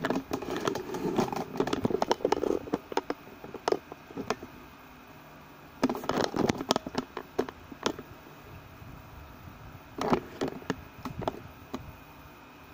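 Ultrasonic humidifier running, its water tank gurgling and bubbling in three bursts of irregular pops and glugs, over a faint steady hum.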